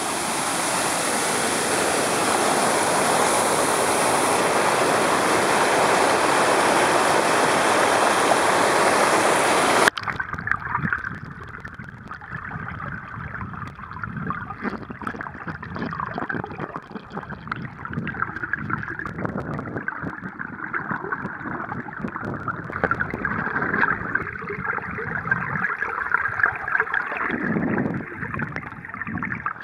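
Loud, steady rushing water that cuts off suddenly about ten seconds in, followed by the muffled gurgling and crackling of water heard through an underwater camera.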